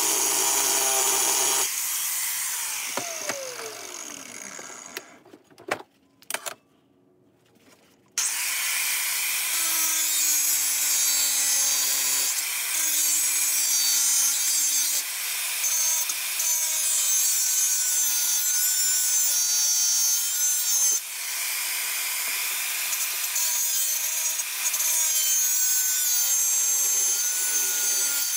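Handheld angle grinder grinding steel, the motor's pitch shifting as the disc is pressed into the work. About two seconds in it is switched off and spins down with a falling whine, leaving a few seconds of near quiet with a couple of clicks. About eight seconds in it starts up again and keeps grinding.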